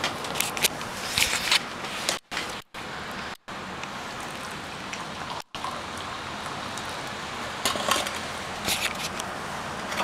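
Steady outdoor background hiss with crackling rustles about half a second to a second and a half in and again around eight to nine seconds in. The sound cuts out abruptly to silence several times, at edits.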